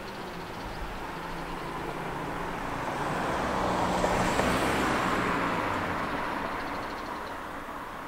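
A road vehicle passing by: engine and tyre noise swell to a peak about halfway through, then fade away.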